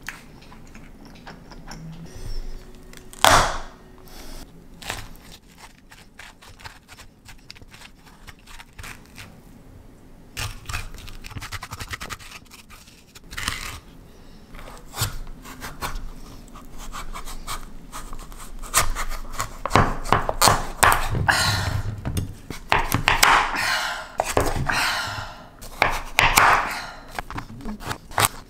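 Kitchen handling sounds: one sharp knock about three seconds in, then scattered light clicks and scrapes, growing into a busier stretch of scraping and rustling in the second half.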